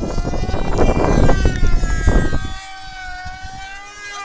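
High-revving engines of model pylon-racing aircraft whining overhead, more than one at a time, their pitch sliding down and back up as they pass. Heavy wind rumble on the microphone for the first two and a half seconds, then it drops away.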